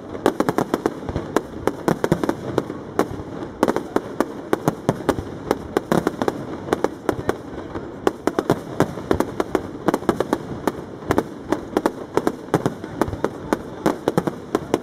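Aerial fireworks display (castillo): shells bursting in rapid, irregular succession, several bangs a second over continuous crackling.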